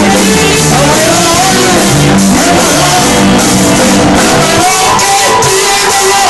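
Loud rock music with a singer's wavering melody over guitar, bass and drums. About two-thirds of the way through, the low bass and drum part thins out, leaving the voice more exposed.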